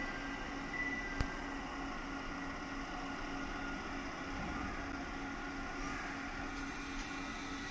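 JR East 701 series 5500-subseries electric train standing at the platform, its onboard equipment giving a steady hum with a faint held tone. A single sharp click about a second in and a brief high hiss near the end.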